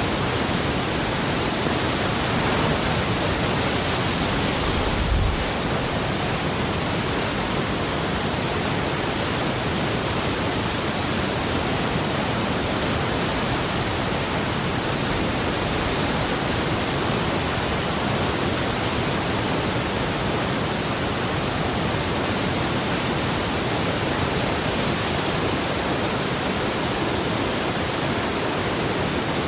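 Continuous dense rush of heavy water, steady throughout, with a short low thump about five seconds in.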